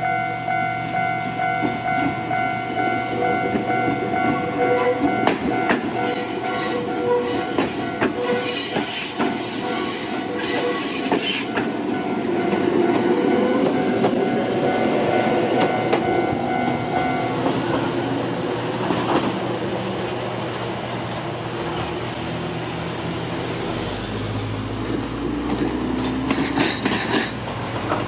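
A level-crossing alarm rings on a steady repeating tone while an electric train passes with rail and wheel noise, including a loud high hiss for several seconds. The alarm stops about two-thirds of the way through, and near the end a car drives over the crossing.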